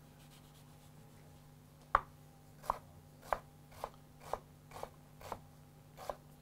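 Kitchen knife chopping an onion on a wooden cutting board, dicing it into brunoise. Short regular knocks start about two seconds in, about two a second.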